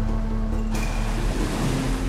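Background music with steady low tones, joined suddenly about three-quarters of a second in by the rushing sound of ocean waves breaking, which carries on over the music.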